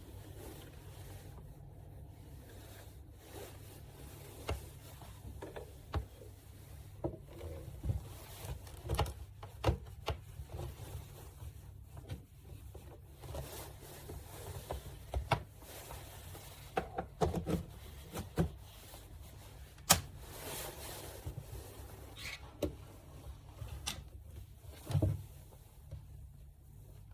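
Irregular clicks, knocks and rubbing, as of objects being handled, over a steady low hum; the loudest knock comes about two-thirds of the way in.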